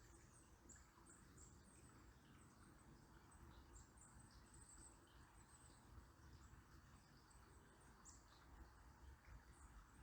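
Small birds giving frequent short, very high, thin chirps over the faint steady hiss of a flowing river.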